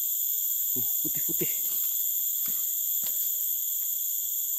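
Steady, high-pitched drone of a forest insect chorus, unbroken throughout, with a couple of faint clicks near the middle.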